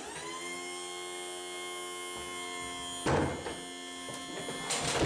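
Apartment doorbell ringing: a steady electric tone with many overtones that starts suddenly and holds for about three seconds. A heavy thud on the door comes about three seconds in, while the tone fades out.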